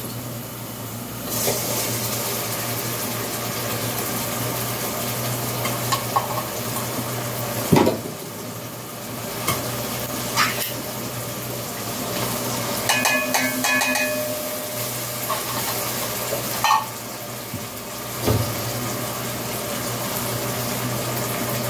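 Food sizzling steadily in a metal pot on the stove, with a few short clinks and knocks of a spoon and utensils against the pot.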